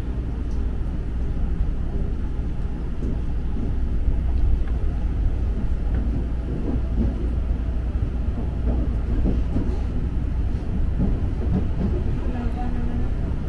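KRL Commuter Line electric train running on the track: a steady low rumble with faint scattered ticks.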